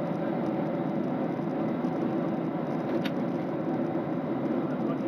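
Steady airliner cabin noise at cruise: the even rush of airflow and engines heard from a window seat. A brief click sounds about three seconds in.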